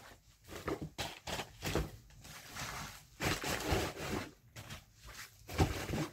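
Packing paper rustling and crinkling in irregular bursts as it is stuffed back into a box, with one dull thump near the end.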